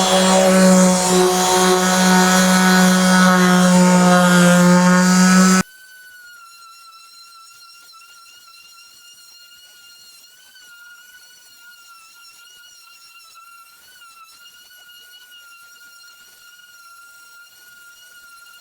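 Palm sander running steadily with a strong hum, which cuts off abruptly about five and a half seconds in. After that only a faint steady high-pitched whine remains.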